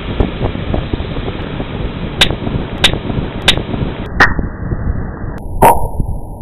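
Firecrackers going off: five sharp cracks about two-thirds of a second apart, the last with a short ringing tail, over a steady rumbling noise.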